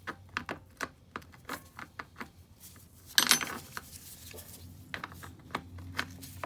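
Small metallic clicks and clinks of hand tools and ATV parts being handled, irregular, with one louder metal clatter about three seconds in.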